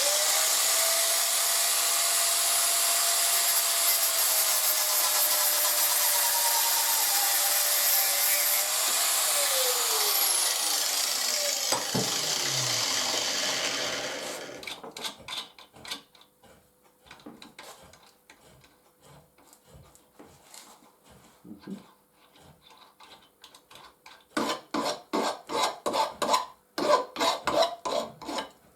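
Electric cutting tool slicing through a steel bolt, running steadily, then switched off about nine seconds in and spinning down with a falling whine. After a lull with small clicks, a run of quick scraping strokes comes near the end.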